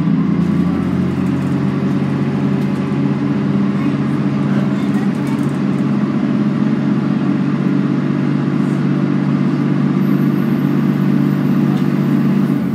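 Scania N113CRB city bus's rear-mounted six-cylinder diesel engine running steadily as the bus drives, heard from inside the passenger cabin near the back as a steady low drone with road noise.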